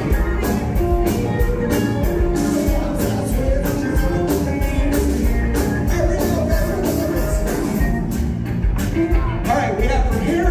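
Live rock band playing: electric guitars, bass, drums and organ over a steady drum beat, with a male singer's vocals.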